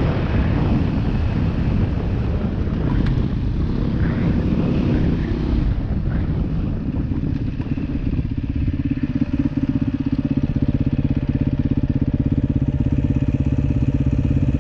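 Beta 500 RR-S dual-sport motorcycle's single-cylinder four-stroke engine, first running while riding, then settling to a steady idle about eight seconds in as the bike stops.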